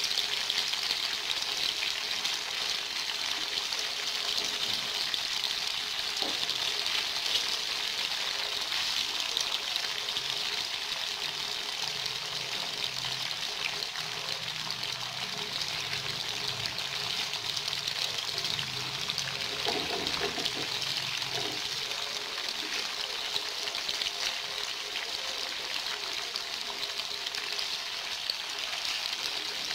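Cubes of white tofu frying in hot oil in a shallow pan: a steady sizzle.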